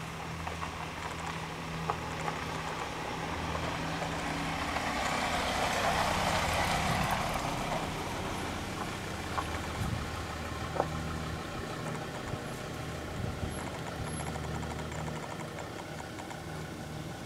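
A vehicle engine idling steadily, a low hum, with a broad rushing noise that swells and fades around the middle.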